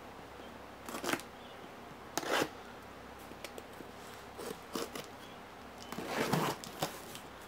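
Box cutter slicing through clear packing tape on a cardboard box: a string of short scraping, crinkling cuts, with the longest and loudest stroke about six seconds in.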